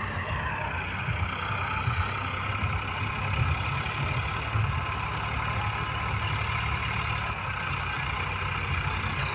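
Distant diesel tractor engines running steadily as two tractors work a field, one a Farmtrac 60 pulling a land leveler and the other pulling a cultivator.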